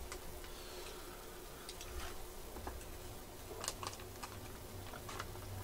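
Quiet eating at a table: a few faint, scattered clicks and taps of utensils and eating over low room noise.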